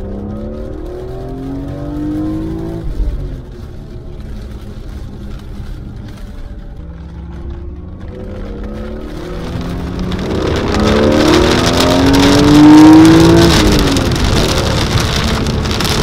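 BMW E46 M3's naturally aspirated straight-six, heard from inside the cabin, accelerating hard. The revs climb and drop at a gear change about three seconds in, then climb again in a long full-throttle pull that peaks near thirteen seconds before falling at the next shift. A hiss of tyre spray from the wet road grows as the car speeds up.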